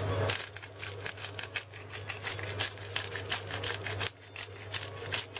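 Spice shaker shaken over raw chicken pieces in a steel bowl, sprinkling chili garlic powder: a quick run of light ticks and rattles, several a second, with a short break about four seconds in, over a low steady hum.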